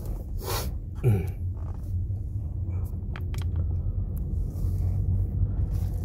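Steady low rumble of a taxi driving, heard from inside the cabin, with a short falling sound about a second in and a few light clicks around three seconds in.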